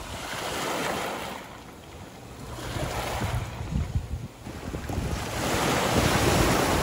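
Small sea waves washing in and out over a pebble beach. The surge swells and fades about three times, the last and loudest near the end.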